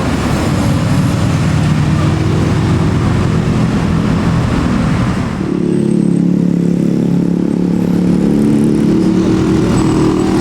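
Diesel engines of passing tour buses running steadily, with one engine sound giving way to another about halfway through.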